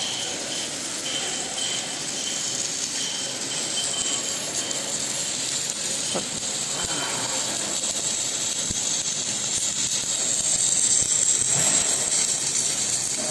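Automatic submerged-arc roller cladding machine running: a steady hissing workshop noise, with a faint, broken high tone through the first half.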